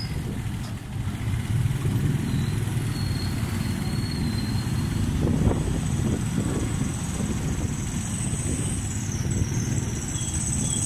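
Motorcycle engine running steadily while riding along a street, with road and wind noise.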